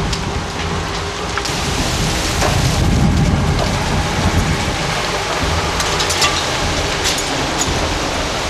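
A house burning in a bushfire: flames roaring steadily with sharp crackles and pops, several of them close together in the last few seconds.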